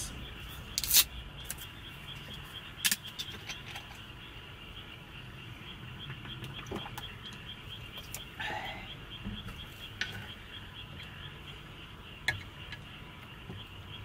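Insects chirping steadily outside, a high, evenly repeated chirp several times a second. Over it come a few sharp clicks and clinks from a plastic drink bottle and tableware, and a short gulp of drink about eight seconds in.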